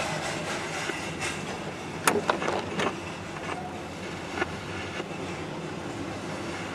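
Pan Am Railways freight train rolling past with a steady rumble of wheels on rail. A quick run of sharp clanks comes about two seconds in, and one more follows a moment later.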